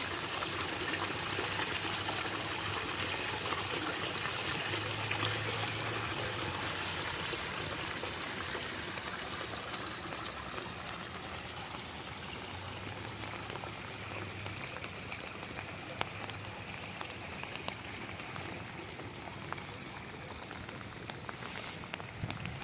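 Runoff rainwater pouring and trickling in a steady rush that slowly grows quieter, with scattered drips.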